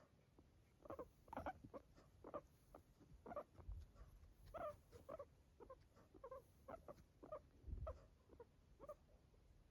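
Guinea pig making short, faint noises with its breaths, about two a second and uneven. This is the abnormal breathing its owner finds strange and that sounds as if the animal is struggling.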